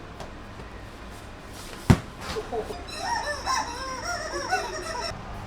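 Several chickens squawking and clucking over one another, starting about three seconds in, after a single sharp click.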